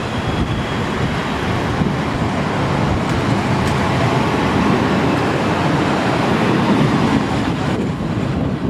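Class 450 Desiro electric multiple unit running past at close range: a steady rumble of wheels on rail. The rumble grows heavier over the last few seconds and eases just before the end.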